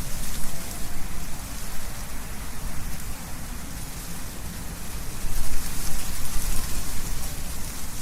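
Wind blowing through trees, leaves rustling in gusts that swell near the start and again about five seconds in.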